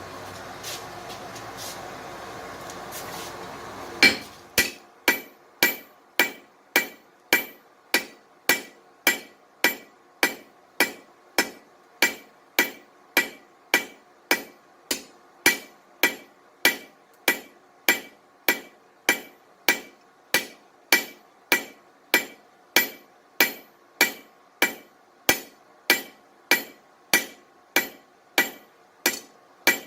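Blacksmith's hammer striking steel on an anvil in a steady, even rhythm of under two blows a second, each blow ringing. The hammering begins about four seconds in, after a steady rushing noise.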